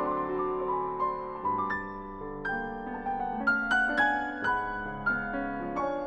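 Solo piano playing a slow, lyrical classical piece. Melody notes and chords are struck every half second or so, each ringing on beneath the next.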